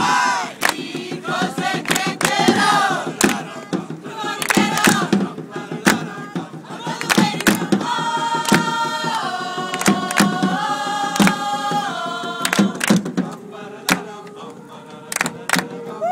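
Punk rock choir singing unaccompanied in mixed men's and women's voices, holding steady chords for a few seconds around the middle. Scattered sharp clicks sound over the singing.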